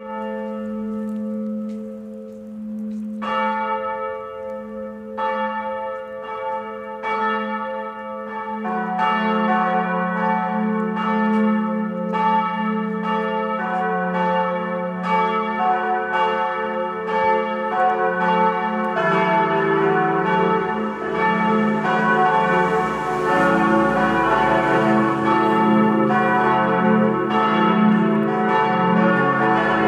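Full peal of four swinging bronze church bells cast by Perner of Passau in 1972, tuned cis1, e1, fis1 and a1. The bells come in one at a time, the smallest first, each newcomer lower in pitch, joining about 9, 19 and 22 seconds in. The strokes grow denser and louder until all four ring together.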